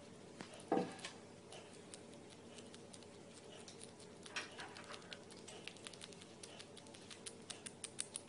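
Serotine bat chewing its food noisily with its mouth open: quick, irregular wet clicks and smacks that come thicker near the end. A single louder thump about a second in.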